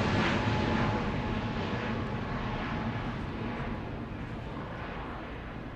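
Airbus A320neo's CFM LEAP-1A turbofan engines at climb power as the jet climbs away after takeoff, a steady rushing roar that fades gradually.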